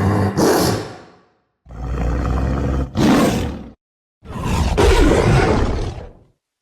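Lion roar sound effect, modified: three loud roars in a row, separated by short breaks of dead silence. The first is already under way and dies out after about a second, the second swells again near its end around three seconds in, and the third fades out shortly before the end.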